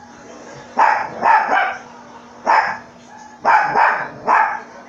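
A dog barking repeatedly: six short barks, some in quick pairs.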